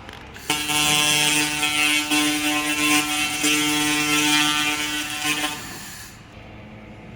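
Handheld fiber laser head firing on metal: a steady buzzing hum over a hiss, starting about half a second in and stopping after about five seconds.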